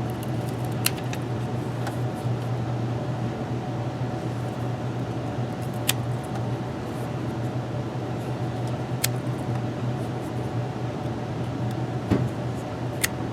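Steady low hum of room noise, with about five sharp, short snaps spread out across the few seconds as an Ontario RAT II folding knife cuts through test material.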